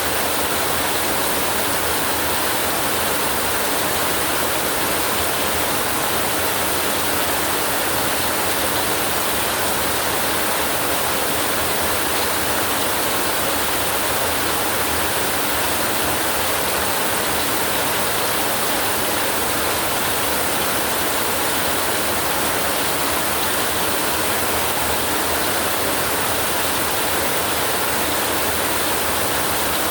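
Steady heavy rain, an even hiss that holds at the same level throughout with no thunder or other events.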